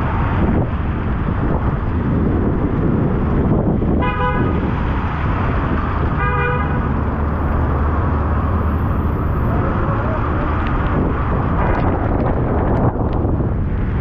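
Heavy rain pouring on a city street, with the steady noise of road traffic underneath. A vehicle horn gives two short toots, about four and about six seconds in.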